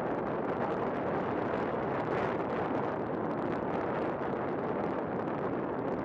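Wind blowing over the built-in microphone of a Canon PowerShot SX130 compact camera: a steady rushing noise with no breaks.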